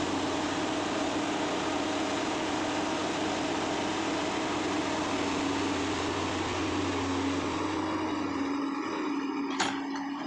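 Komatsu PC200 hydraulic excavator's diesel engine running steadily at working revs. Near the end the engine note drops slightly and there is a single sharp click.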